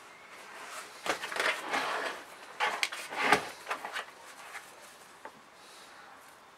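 Black plastic plant pot crinkling and penstemon foliage rustling as the plant is worked loose from its pot by hand, in irregular bursts for about three seconds.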